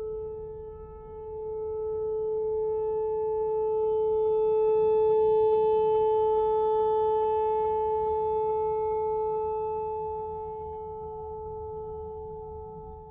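Whelen WPS-4004 electronic outdoor warning siren sounding a steady, unwavering alert tone. It swells louder about five seconds in and fades toward the end as the rotating speaker head turns toward and then away.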